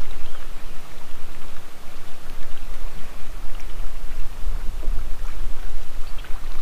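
Loud, steady rushing noise with a deep rumble underneath and a few light ticks: wind and water noise around an open bass boat on the lake.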